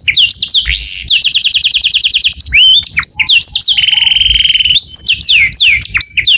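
Male canary singing: a fast trill of rising notes, then a buzzing low roll about midway, with quick whistled up-and-down glides between them.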